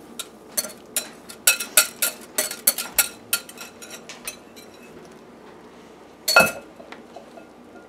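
A metal wire whisk clinks against a glass mixing bowl and a glass baking dish as the custard mix is scraped and stirred. There is a quick, irregular run of clinks over the first four seconds or so, then one louder clink about six seconds in.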